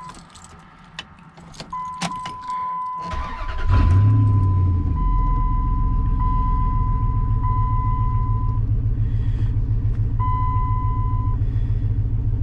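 Keys jangle and click in the ignition while an electronic chime sounds a steady single-pitch tone on and off. About four seconds in, the 2004 Dodge Ram 1500's engine cranks, catches with a brief swell, and settles into a steady idle.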